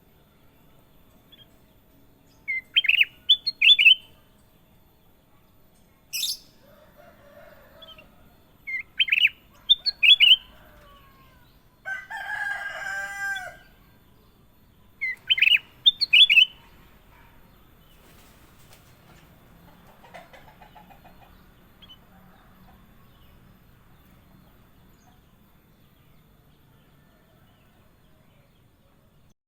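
Kutilang emas bulbul singing: three short bursts of quick, clear whistled notes, a few seconds apart. Between the second and third bursts comes a harsher, lower warbling call of about two seconds.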